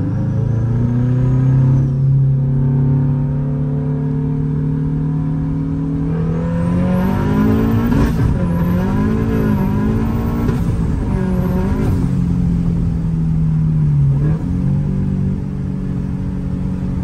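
Car engine running while driving, its pitch holding steady and slowly climbing, then rising and falling several times in quick succession in the middle before settling again.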